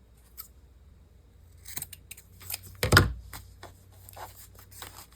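Paper and craft materials being handled on a work surface: light rustles and small clicks, with one louder knock about three seconds in.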